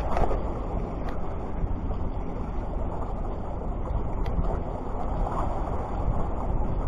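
Steady low rumble of wind buffeting the microphone over sea surf, with a couple of faint clicks.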